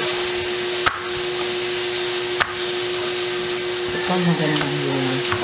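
A small kitchen knife cutting a vegetable into strips over a plastic cutting board, with two sharp clicks of the blade, over a steady loud hiss and low hum.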